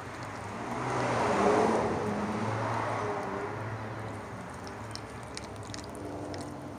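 A Chihuahua licking her newborn puppy clean: small wet clicks and smacks, mostly in the second half. About a second in, a broad rushing swell of noise rises and fades over roughly two seconds.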